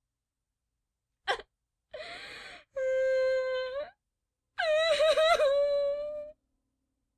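A person crying in a high voice: a sharp gasp about a second in, then a short ragged sob, a held steady wail and a longer wail that wavers up and down, with silent gaps between.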